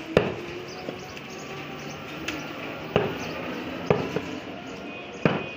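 Heavy cleaver chops into a beef leg on a wooden chopping block: about four loud, irregularly spaced thuds, with a few lighter knocks between them.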